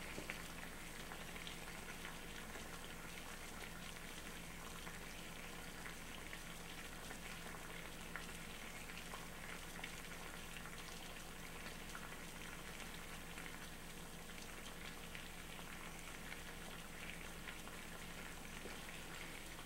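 Water at a hard, rolling boil in a small pot over a burning alcohol stove: a steady, faint bubbling with small scattered pops.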